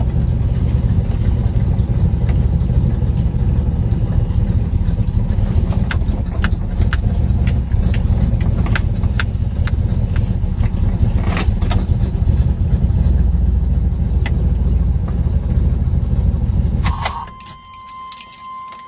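Chevrolet Camaro's newly built four-bolt-main 350 small-block V8, still in break-in, running with a deep steady rumble and a few sharp clicks, then switched off about seventeen seconds in. As it dies, a steady high electronic tone sounds.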